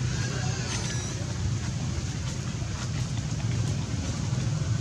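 Steady low rumble and hiss of outdoor background noise, with a faint, brief high-pitched squeak about a second in.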